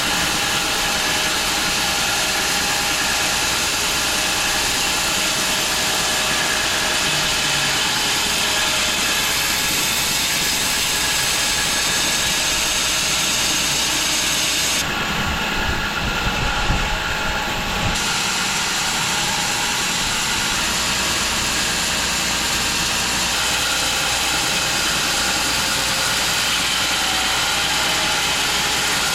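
Home-built 6 ft wide bandsaw mill running steadily as its blade saws through a London plane log, a dense, even machine noise. For a few seconds past the middle the high hiss drops away and a few low knocks sound.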